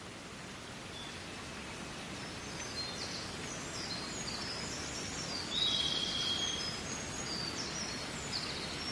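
Recorded nature ambience: a steady outdoor hiss slowly growing louder, with small birds chirping in quick, high calls from about three seconds in.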